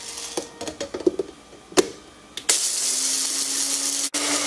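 Plastic clicks and knocks as the grinding cup of a multi-function blender is set onto its base. About halfway through, the motor starts and runs loud and steady, grinding black and white peppercorns and spices. Just before the end it cuts out for an instant, then runs on.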